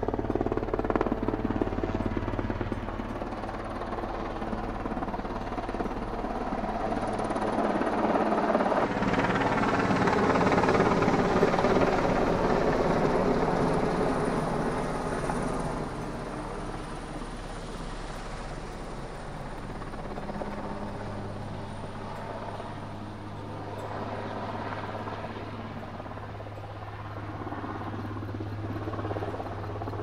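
Swiss Army Super Puma twin-turbine military helicopter flying past: continuous rotor beat and turbine noise that grows louder as it comes close overhead about ten seconds in, then fades as it moves off.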